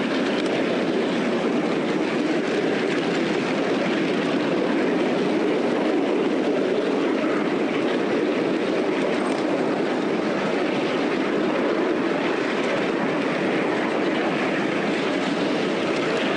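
Miniature railway locomotive running along a raised track, its wheels rolling on the rails in a steady, even rumble.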